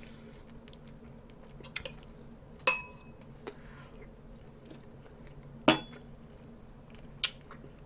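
Cutlery clinking against dishes: four sharp, scattered clinks, some with a short metallic ring.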